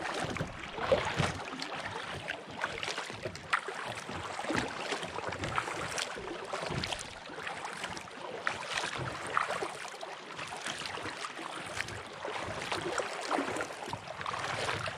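Lake water lapping and splashing against the hull of a moving kayak, right at the waterline next to the microphone: an uneven run of small splashes and slaps.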